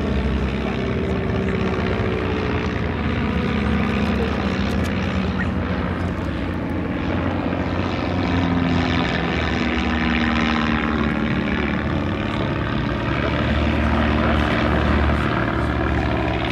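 Propeller-driven light aircraft flying overhead in formation, their piston engines droning steadily. The engine pitch slides down several times as planes pass.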